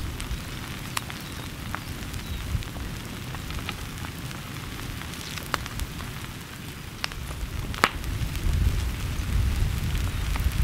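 Scattered sharp crackles and pops from a small lava breakout and the dry brush at its edge, about one a second, the loudest about eight seconds in, over a low uneven rumble.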